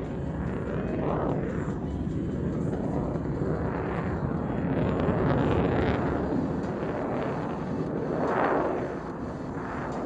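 F-22 Raptor's twin Pratt & Whitney F119 turbofan engines roaring in flight, the noise swelling and fading several times and loudest about eight seconds in.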